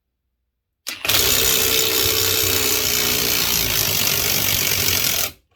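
Ryobi 18V One+ HP brushless mid-torque 1/2-inch impact wrench hammering continuously on a grade 5 coarse-thread 7/16 bolt, starting about a second in and running for about four and a half seconds. It stops abruptly when the bolt breaks.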